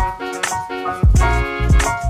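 Background music with a steady beat: bass hits about twice a second under sustained pitched chords.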